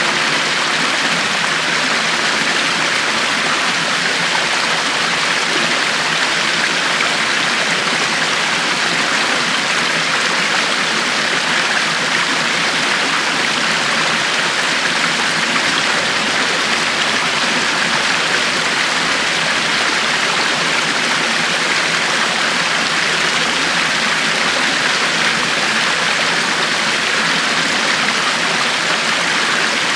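River water flowing over rocks: a steady, even rushing.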